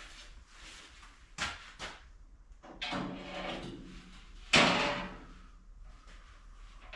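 Knocks and scrapes of sheet-metal pieces being handled, with a few light knocks early on and one louder clank about four and a half seconds in that dies away over about a second.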